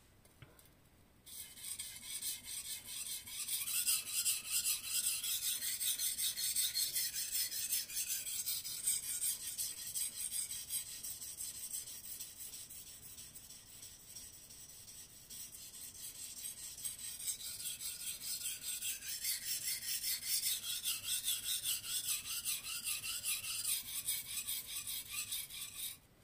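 Aogami Super steel knife blade being stroked back and forth on a wet Imanishi Arashiyama #1000 whetstone, a rapid, steady scraping rasp of steel on stone. It starts about a second in, eases off for a few seconds around the middle, picks up again and stops abruptly at the end.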